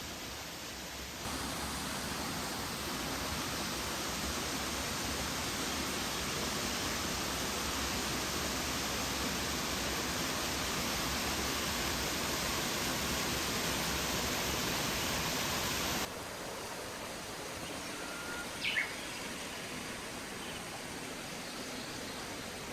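Steady rushing of a waterfall. It jumps louder about a second in and drops abruptly to a quieter rush about 16 seconds in. There is one short high chirp near the end.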